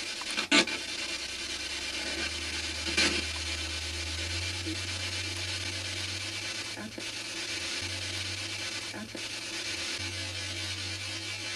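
Steady hiss of radio static from a ghost box (a radio sweeping through stations), with a few short crackles about half a second in and again around three seconds in.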